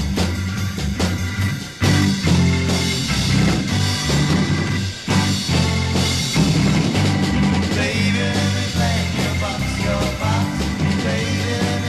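Late-1960s psychedelic rock band playing from a vinyl record, heavy on the bass.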